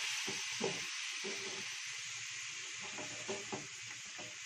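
Soya chunks sizzling and hissing in a frying pan as freshly added coconut milk hits the hot oil, with a spatula scraping and stirring through the pan. The hiss is strongest at the start and eases slightly.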